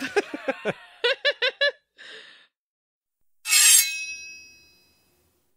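Brief laughter, then a sudden sharp ringing clink that dies away over about a second and a half.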